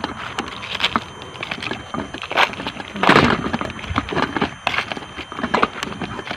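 Footsteps crunching over dry, rough ground at a walking pace, with rustling and handling noise, and a louder rustle about three seconds in.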